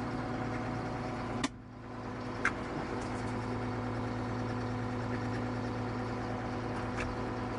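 Case 2090 tractor's diesel engine running steadily with a constant hum. A sharp click comes about a second and a half in, followed by a brief dip in level, and there are light clicks later.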